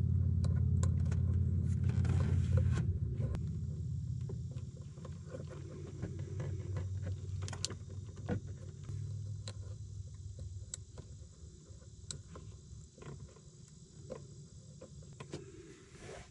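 Hands working trailer-light wiring: small clicks and rustles of wires and crimp connectors being handled. Underneath is a low hum, loud for the first few seconds and then weaker.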